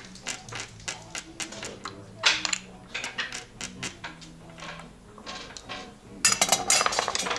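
Backgammon checkers clicking on the board as a move is made, then dice rattling rapidly in a cupped hand near the end. Background music plays under it.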